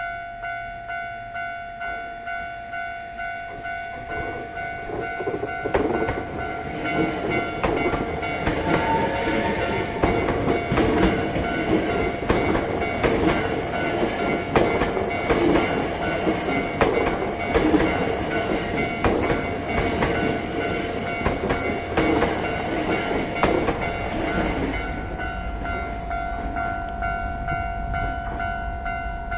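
Japanese level-crossing warning bell ringing in a steady pulsing rhythm while a Hankyu electric train passes over the crossing. The train's wheels click over the rail joints in a long run from about six seconds in, then fade away. The bell stops near the end.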